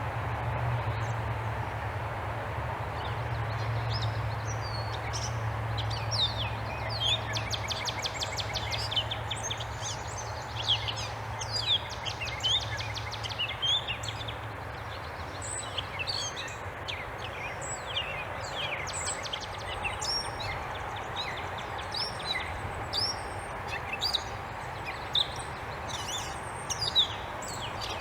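Several birds chirping and calling in short, quick notes throughout, over a steady outdoor background hum.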